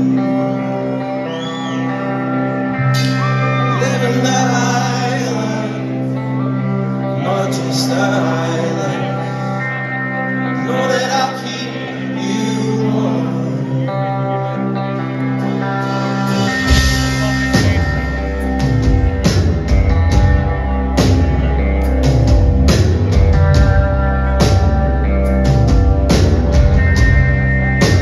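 Live rock band performing, heard from the crowd in a large hall: a male voice singing over sustained guitar chords, then about halfway through the drums and bass come in with a steady beat.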